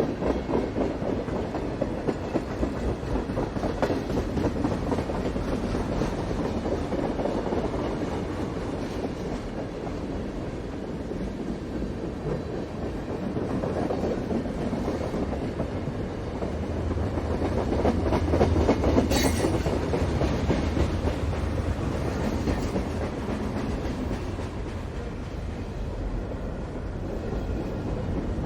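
Freight train passing by: a steady rumble and rapid clatter of wagon wheels over the rails, swelling louder about two-thirds of the way through, with a brief high-pitched screech at the loudest point.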